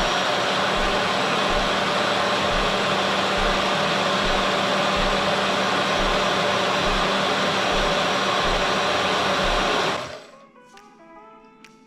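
Personal single-serve blender running steadily as it blends an avocado shake, held down on its base to run, then cutting off about ten seconds in.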